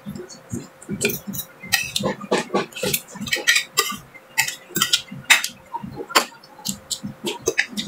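Close-up eating sounds: chewing and mouth clicks with a metal spoon and fork clinking and scraping on a ceramic plate, many irregular sharp clicks in quick succession.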